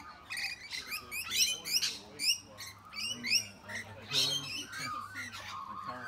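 Rainbow lorikeets chattering: many short, shrill screeching calls in quick succession.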